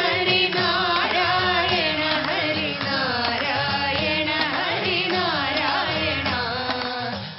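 A song in South Indian classical style: a voice sings a gliding melody over instrumental accompaniment.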